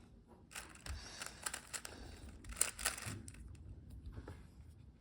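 Rapid plastic clicking and rattling of a 3x3 Rubik's Cube's layers being turned by hand in quick succession.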